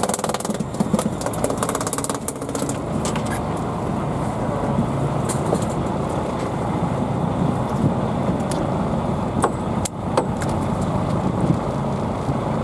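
Fishing boat's engine running steadily under sea and wind noise, with a fast run of fine clicks in the first couple of seconds and a few sharp ticks later.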